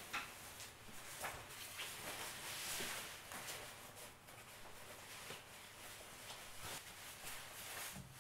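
Faint rustling of a nylon puffer jacket being handled and put on, loudest a couple of seconds in, with scattered light knocks and footsteps.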